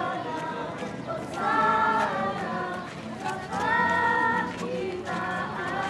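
A group of voices singing a hymn in long held notes, with the murmur of the crowd underneath.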